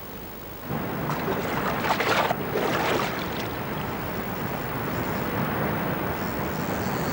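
River water rushing steadily, starting abruptly about a second in, with louder noisy surges between about one and three and a half seconds in.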